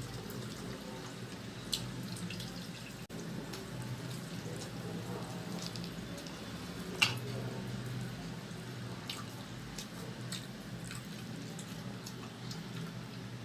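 Mouth sounds of someone eating fried chicken: scattered wet clicks and smacks, the sharpest about seven seconds in, over a steady low hum.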